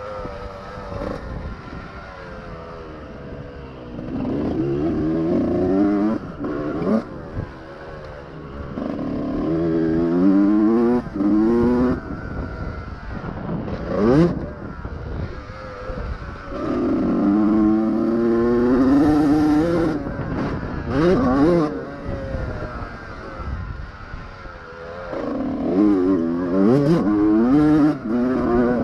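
Honda CR125 two-stroke motocross engine revving hard in several bursts, its pitch rising with each burst, easing back to a lower, rougher running between them.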